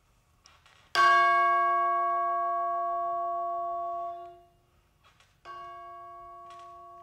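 One tube of a set of Musser orchestral chimes (tubular bells) struck twice with a mallet, first loudly, then more softly about four seconds later. Each strike rings as the same bell-like chord of steady tones; the first is cut off after about three seconds. The note stays at the same pitch and only its loudness changes, showing that the tube's resonant frequency does not change with how hard it is struck.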